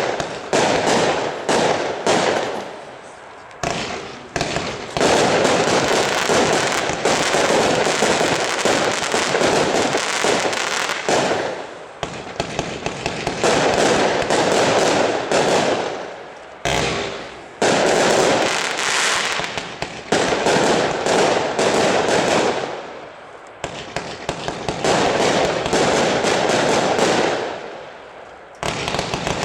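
A 198-shot, 20 mm consumer fireworks compound cake firing rapid shots continuously in runs of several seconds, with brief pauses between the runs.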